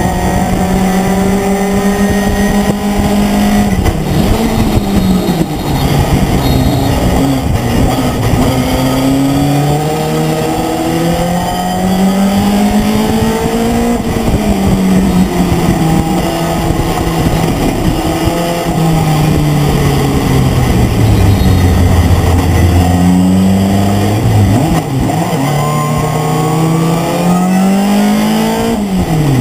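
Race pickup truck's engine heard onboard at racing speed, its pitch climbing and falling several times as it accelerates, lifts off and changes gear through the corners, over wind and road noise.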